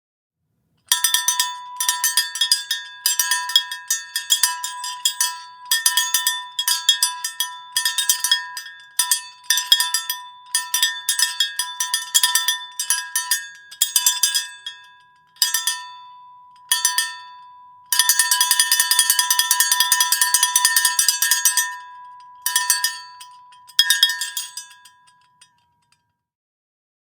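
A cowbell clanking in bursts of quick, irregular strikes, all on one ringing pitch. There is a longer unbroken spell of fast clanking about two-thirds of the way through, and then a few last strikes that ring out and stop.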